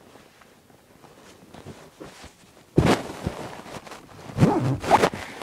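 Rustling and handling noise from clothing rubbing close to the microphone, starting suddenly about three seconds in after a quiet stretch.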